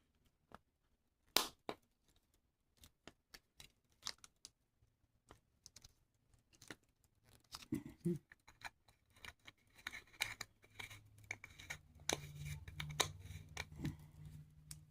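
Small sharp clicks, taps and scrapes of pocket watch case parts and small tools being handled on a work surface during reassembly. A low steady hum comes in during the last few seconds.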